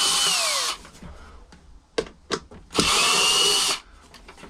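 Screw gun running in two short bursts, its motor whine falling away as each one stops, backing screws out of a karaoke machine. A few light clicks fall between the bursts.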